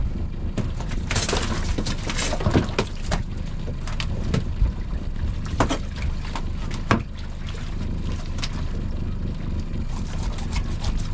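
Boat engine running with a steady low rumble, with scattered sharp knocks and clatters of handling on deck.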